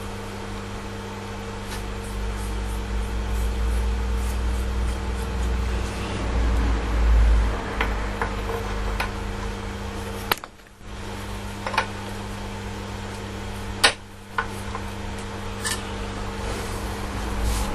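A steady electrical hum, with a low rumble swelling a few seconds in, and a handful of sharp clicks and knocks from parts being handled. The sound drops out briefly twice.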